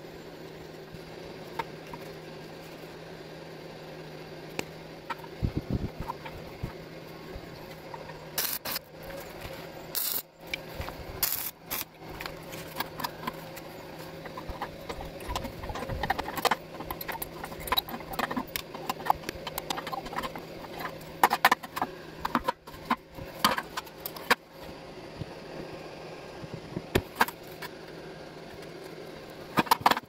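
Irregular light metallic clinks and taps from steel and hand tools being handled: pliers, copper wire and a steel barrel hinge against a thin square steel tube. A steady low hum runs under roughly the first eight seconds.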